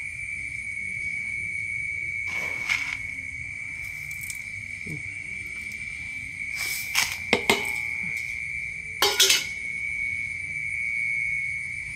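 A steady high-pitched insect trill, unbroken throughout, with a few short rustles and clinks of salt being scooped by hand from a bowl on a kitchen scale and spread over fish, loudest about seven and nine seconds in.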